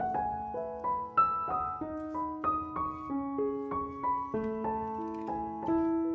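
Background piano music: a melody of single struck notes, about three a second, each ringing on as the next one sounds.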